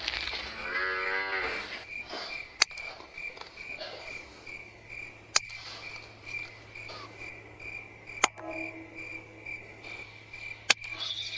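Crickets chirping in a steady pulsing rhythm, with a low drawn-out animal call about a second in and four sharp clicks spaced a few seconds apart.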